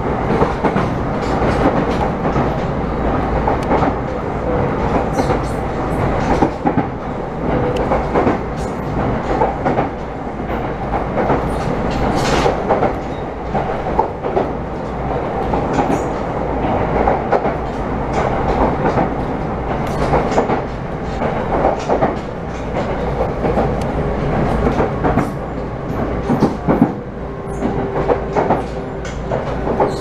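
Train running along the line, heard from inside the passenger car: steady running noise from wheels on rail, with irregular clicks and clacks over the track. A steady tone comes in near the end.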